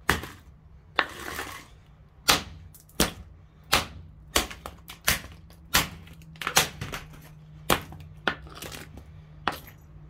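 A metal pole repeatedly smashing the wrecked blue plastic housing and motor of an XU1 jigsaw on stone paving slabs. There are about a dozen sharp blows, roughly one a second, with plastic cracking and fragments clattering after some of them.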